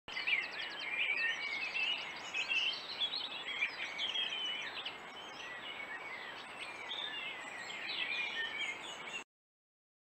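Several birds singing at once: many overlapping chirps, whistles and quick trills over a steady hiss, cutting off abruptly about nine seconds in.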